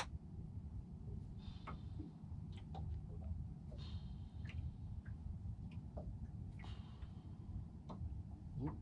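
Quiet ambience on a small boat at rest on calm water: a low steady rumble with scattered faint ticks and knocks, and three faint high-pitched sounds about two to three seconds apart.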